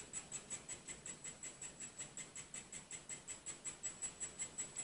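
3D printing pen's filament feed motor running, a steady rapid clicking of about six ticks a second with a thin high whine, as it pushes molten plastic out of the hot tip.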